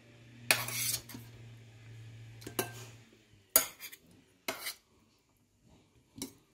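A metal spoon scraping and clinking against a ceramic serving bowl of curry: one longer scrape near the start, then several short, separate clinks.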